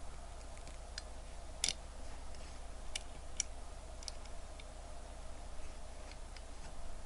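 Scattered light clicks and taps of a steel watch case and bracelet against the plastic posts and metal parts of a watch case holder as the watch is pressed into place. There are about half a dozen, the sharpest about one and a half seconds in, over a faint steady hum.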